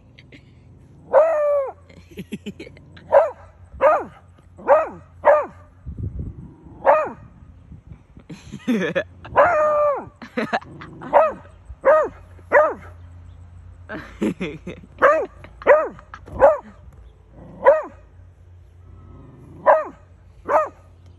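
Beagle barking over and over, about one bark a second with short pauses, a few drawn out longer. Territorial alarm barking: she is mad at birds near the house.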